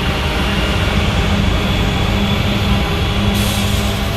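Norfolk Southern diesel-electric freight locomotive passing close by: a loud, steady engine drone with a deep rumble from the moving train.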